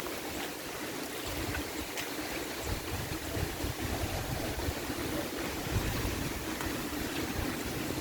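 Steady rain falling, with scattered ticks of single drops, over an uneven low rumble.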